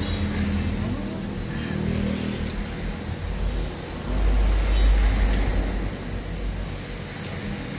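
Low rumble of road traffic, swelling as a vehicle passes about four to six seconds in.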